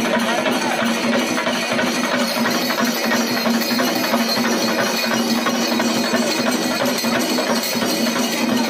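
A troupe of chenda drums played together in a fast, dense, unbroken rhythm, with a steady low tone running beneath the strokes.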